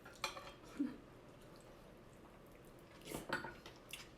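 Utensils clicking and clinking lightly against dishes during a meal: a few short, scattered clicks with quiet between them.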